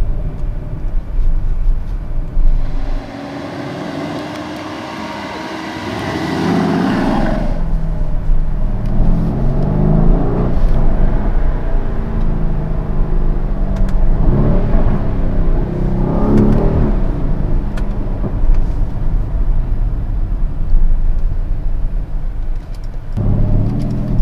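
Mercedes-AMG GLE 63 S twin-turbo V8 pulling away and accelerating in city traffic, its note rising in pitch several times as the revs climb and falling back between pulls.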